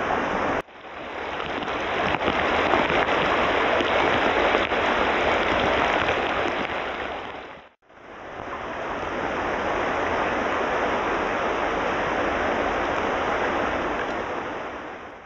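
Rushing water of a small creek running over a riffle, a steady hiss. It drops out briefly about half a second in and again about halfway through.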